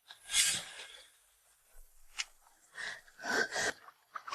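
A frightened woman's sharp gasp, then a few short, shaky breaths, with a small click in between.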